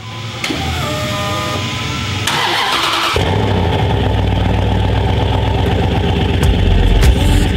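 Lifted first-generation Dodge Durango rock crawler being started: the starter cranks and the engine catches about three seconds in, then runs steadily.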